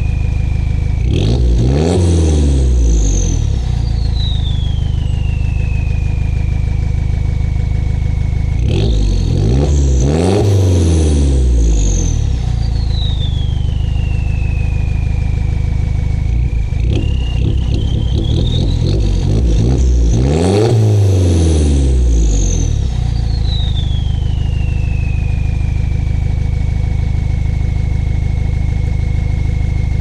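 Land Rover Freelander 1 Td4's 2.0-litre four-cylinder turbodiesel, straight-piped to a side exit, idling and blipped three times: about a second in, about nine seconds in and about twenty seconds in. Each rev brings a turbo whistle that shoots up and then falls slowly over several seconds back to a steady high whine at idle.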